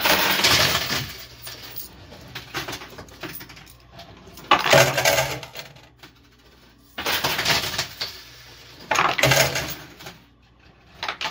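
Plastic poker chips and coins clattering as they spill off a coin pusher machine, in four loud bursts of about a second each, a few seconds apart, with quieter clinks between.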